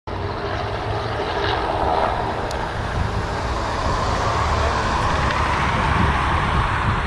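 Airbus A220's Pratt & Whitney PW1500G geared turbofan engines on final approach: a steady jet rumble and hiss that grows slightly louder as the aircraft nears.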